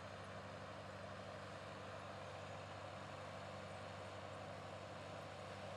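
John Deere 4630 tractor's turbocharged six-cylinder diesel running steadily under load while pulling a 12-row corn planter, heard faintly.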